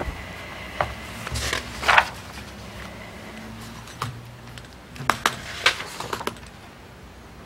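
Sheets of paper being handled and turned close to the table microphones, a scatter of short rustles and taps over a quiet room background, the loudest about two seconds in.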